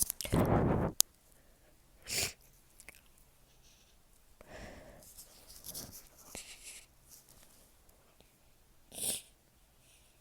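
A person on the verge of a sneeze, breathing and sniffing. A loud breathy burst comes right at the start, then sharp sniffs about two seconds in and near the end, with softer catching breaths between.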